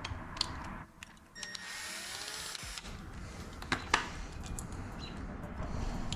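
A cordless drill-driver runs for about a second, taking screws out of a door's lock mechanism, with sharp clicks and knocks of the metal parts being handled, two of them close together after the drill stops.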